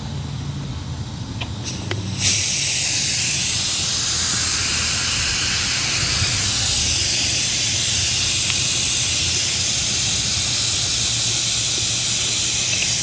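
Pressurised nitrogen from a pressure test, around 100 psi, hissing steadily out at the AC line set's service valve as it is released. The hiss starts abruptly about two seconds in.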